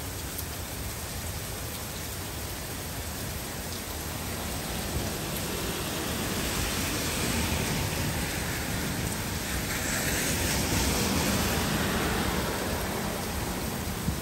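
Heavy rain falling on trees and a wet street, a steady hiss that swells louder for several seconds in the middle.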